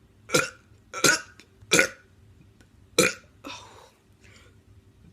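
A teenager burping: four short, loud burps in quick succession over the first three seconds, followed by fainter sounds.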